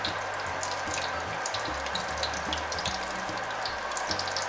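Battered rolls deep-frying in hot oil in a wok: a steady sizzle with many small, scattered crackles.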